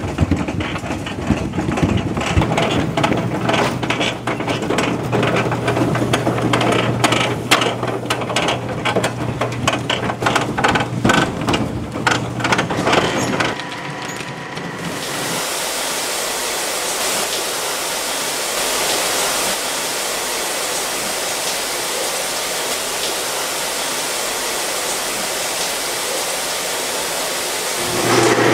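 Apples knocking and tumbling on a cider mill's conveyor, with a steady machine hum. About halfway through this changes to a steady hiss of water spraying over apples on the washer's rollers.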